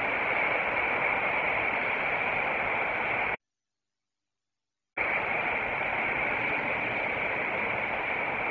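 Hissing static noise that cuts in and out abruptly with dead silence between: one stretch of about three and a half seconds, a gap of about a second and a half, then it comes back on.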